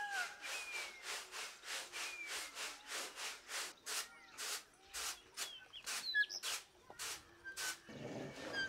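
Finger millet grain swishing in a woven winnowing tray as it is shaken with quick strokes, about three a second, to sort the grain from chaff, with birds chirping. Near the end this gives way to the lower grinding rumble of a stone hand quern milling the grain.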